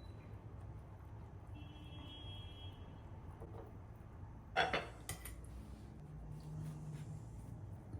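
Kitchen handling sounds over a low steady hum: a sharp clink of a dish or utensil about halfway through, followed by a lighter second clink.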